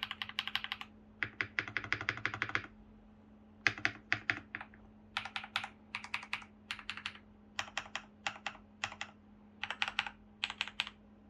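Typing on a Keychron V1 mechanical keyboard with lubed KTT Darling switches, tape mod and PE foam, and ABS double-shot keycaps: quick runs of keystrokes with short pauses between them, stopping shortly before the end.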